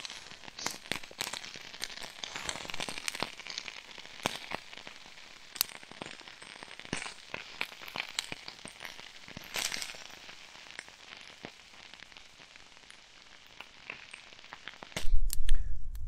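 Small wood fire crackling in a hobo stove, with irregular sharp pops and snaps. A brief loud low rumble comes near the end.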